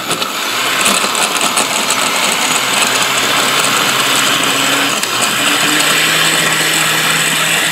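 Oster countertop blender running at high speed, churning a thick strawberry and banana milkshake with a scoop of ice cream; a steady, even whirr.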